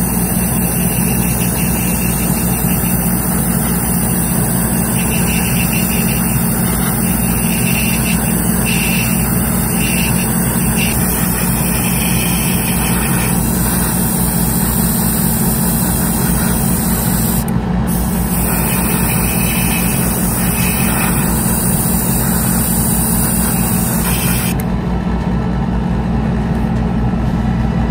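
Airbrush setup: a compressor motor runs with a steady hum while the airbrush sprays lacquer paint with a hiss. The hiss cuts out briefly near the middle and its highest part stops a few seconds before the end.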